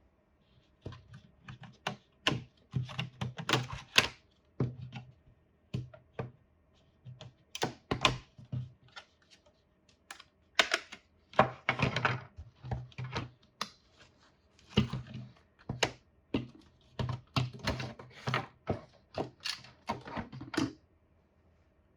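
Irregular clusters of sharp clicks and knocks with low thumps, as hard plastic parts of a 3D-printed air purifier are handled and fitted together, over a faint steady hum.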